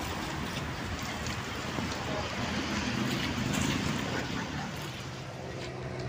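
Small sea waves washing against shoreline rocks, with wind noise on the microphone.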